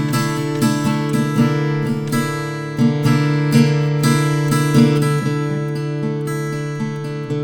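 SAGA GS700 R acoustic guitar played in a steady rhythm, picked and strummed chords ringing on between strokes.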